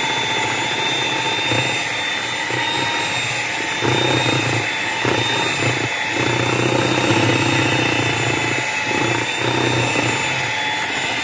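Electric hand mixer (STWK 7-speed) running at high speed, its beaters churning through thick chocolate cake batter in a plastic bowl. It gives a steady motor whine, with a lower churning sound that swells and dips through the middle as the beaters move through the batter.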